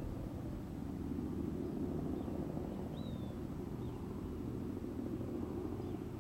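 Boeing B-17 Flying Fortress's four Wright Cyclone radial engines droning as the bomber flies away, the sound slowly fading.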